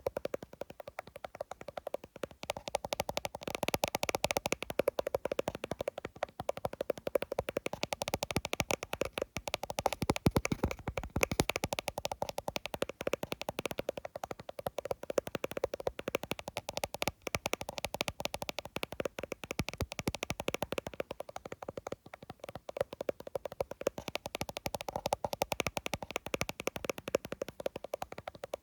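Fingers tapping fast on an iPhone: a dense, unbroken run of quick taps.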